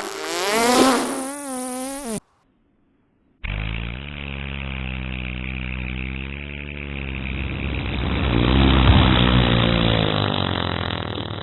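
Fart sound effects: a short one whose pitch warbles up and down, then after a second of silence a long, low fart that lasts about nine seconds, its pitch wavering slightly and growing louder past the middle.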